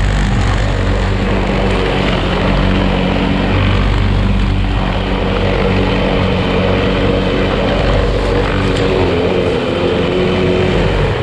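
Outils Wolf lawn mower engine running steadily under load while cutting tall grass.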